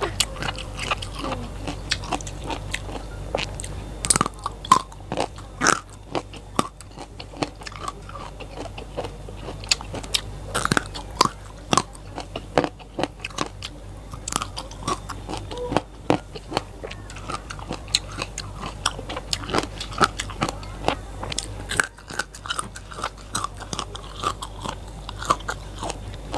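Close-miked biting and chewing of raw vegetables: many irregular, sharp, crisp crunches.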